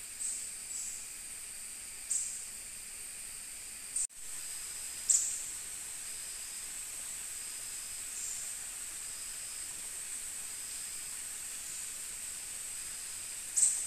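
Rainforest insects: a steady high-pitched drone, with sharper high calls swelling up every few seconds and a run of short, evenly spaced peeps in the middle. The sound drops out for an instant about four seconds in.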